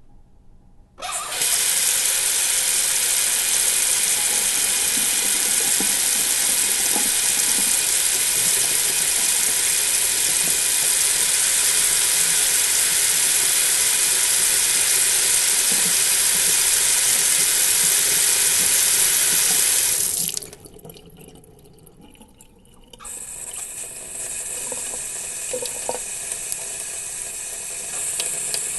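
Water from a sink tap splashing into the basin, starting suddenly about a second in and running steadily until it is shut off abruptly after about 20 seconds. After a short pause, a quieter run of water starts and carries on, with small clicks and drips in it.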